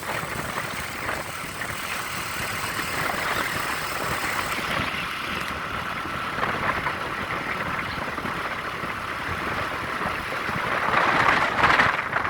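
Motorcycle engine running steadily, getting louder about eleven seconds in.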